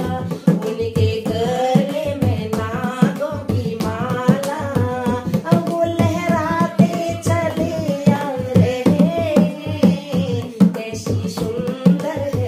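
Women singing a Hindu devotional bhajan together, accompanied by a dholak hand drum played in a steady rhythm and by hand clapping.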